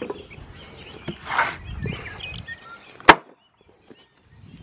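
A cleaver chopping a leg off a possum carcass on a wooden block: one sharp, loud chop about three seconds in, with softer knocks before it.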